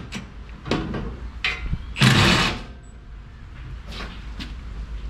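Cordless impact wrench on a swivel extension hammering in short bursts, the longest and loudest about two seconds in, working at a rear suspension bolt.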